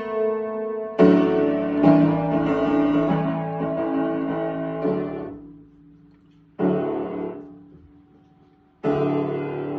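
Upright piano played in held chords: a loud chord about a second in and further chords, each left to ring and die away, with two short, almost silent gaps between chords in the second half.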